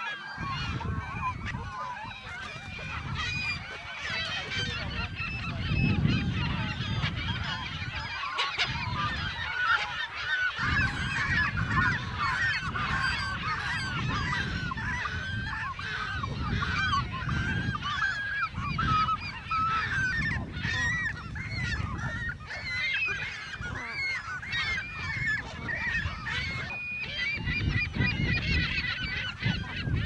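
Dense chorus of a nesting waterbird colony, with many birds calling over one another at once in a continuous tangle of short, squawking calls. A low, uneven rumble runs underneath.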